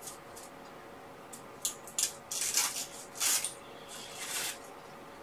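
A camera strap being undone by hand: about five short scratchy rips and rustles in a row, over a faint steady hum.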